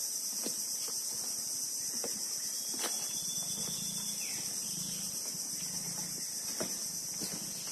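Steady, high-pitched insect chorus in mangrove forest, with scattered light clicks or knocks. A faint short whistle falls in pitch about four seconds in.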